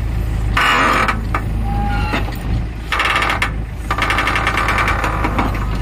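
JCB backhoe loader's diesel engine running steadily, while broken rock and rubble clatter out of the bucket into a steel tractor trolley in several rough bursts.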